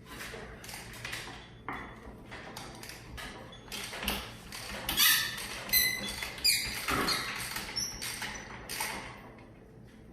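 Hand tools working on a stuck bolt in a Warn 8274 winch's case: a string of irregular metal clicks and knocks, with a short high squeak a little over halfway through.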